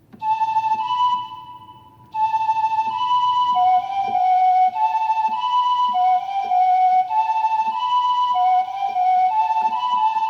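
Ney (Arabic reed-flute) voice of an LP6110E oriental portable keyboard playing a melody: a short phrase, a brief pause, then a steady run of notes from about two seconds in.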